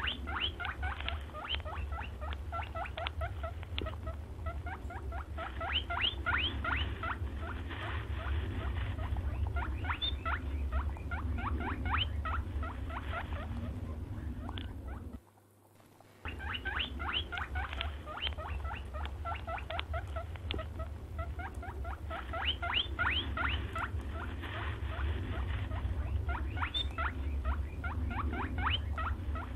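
A hare squeaking: rapid runs of short, high-pitched squeaks and chirps over a low steady hum. The sound breaks off for about a second halfway through and then starts over with the same pattern.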